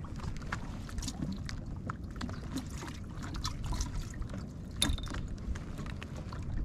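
Small waves lapping and splashing against a kayak hull, with scattered light ticks and one sharper click about five seconds in.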